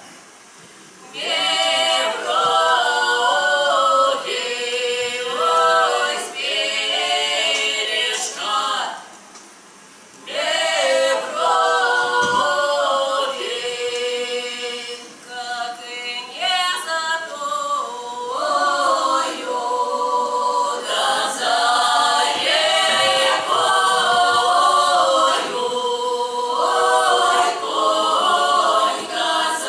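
Russian folk-song ensemble of women and one man singing a cappella in long phrases, with short breaks at the start and about ten seconds in.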